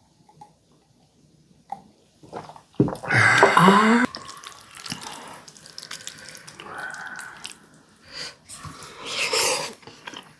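A person eating warty sea squirt: a loud wet slurp about three seconds in, then quieter mouth noises and smacking, with another short wet slurp near the end.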